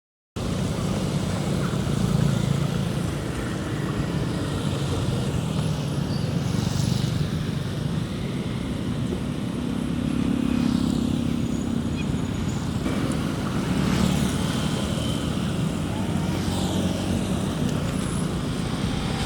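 Floodwater rushing steadily off a road into a culvert drain.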